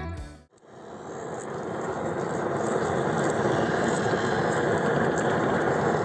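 A woodworking machine running steadily with a rattling mechanical drone. It rises in level for a couple of seconds after guitar music cuts off about half a second in, then holds.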